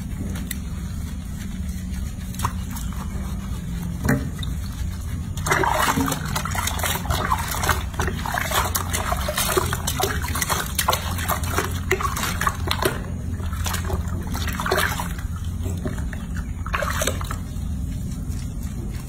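Hands splashing and sloshing water in a washbasin as water is scooped over a small animal, dense irregular splashes starting about five seconds in and thinning out near the end. A steady low hum runs underneath.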